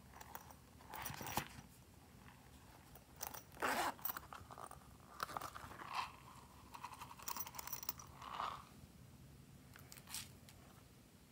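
Hands handling a hard plastic slime container: a series of short crunching scrapes and clicks of plastic, loudest a little before halfway through.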